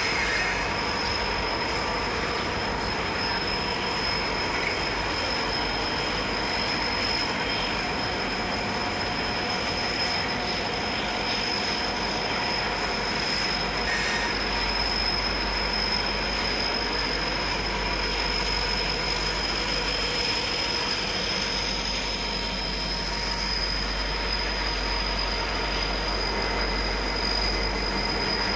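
Three diesel-electric freight locomotives, two G-class units and HL203, hauling a container train past at close range. The engines rumble steadily under a rolling wheel noise, and a steady high squeal from the wheel flanges on the curve holds throughout.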